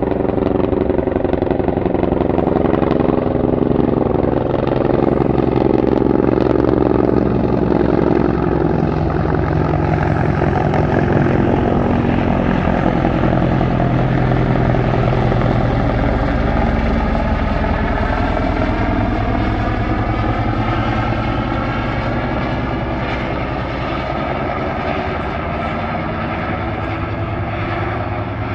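Helicopter flying past, a steady, loud rotor and engine sound whose pitch slowly slides as it passes, easing off a little toward the end.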